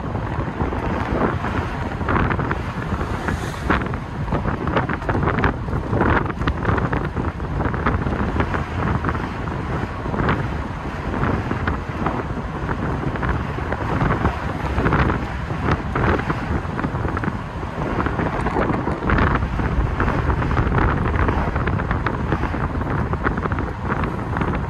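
Wind buffeting the microphone in the open cockpit of a V8 TVR on the move, in irregular gusts, with the car's engine running beneath it.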